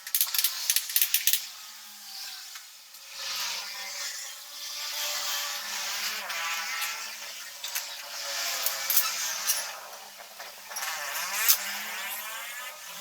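A quick run of mechanical clicks, then a machine whirring whose pitch rises and falls several times as it speeds up and slows.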